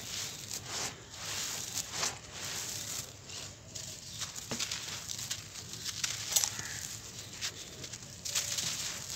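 Dry sand-cement lumps crushed and crumbled by hand, with a gritty crunch as they break and a hiss of crumbs and dust falling back onto the heap.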